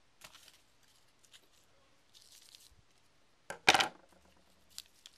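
Handling noise from a small paper Sea-Monkeys water purifier packet and a pair of scissors: light rustles and clicks, with one louder, brief crinkling burst about three and a half seconds in.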